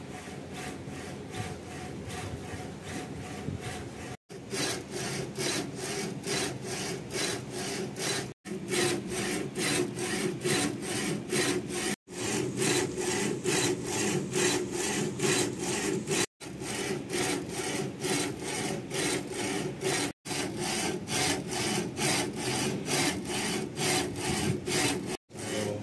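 A4 UV flatbed printer printing onto a slipper: the print-head carriage shuttles back and forth in a fast, even, repeating swish over a steady motor hum. The sound cuts off abruptly every few seconds and starts again.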